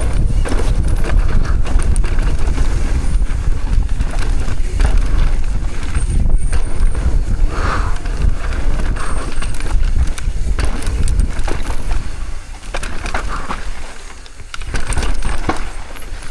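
Mountain bike descending a dry, loose dirt trail: wind rumbling over the microphone, tyres on dirt, and the bike rattling and clattering over bumps. About twelve seconds in it quietens for a couple of seconds, then picks up again.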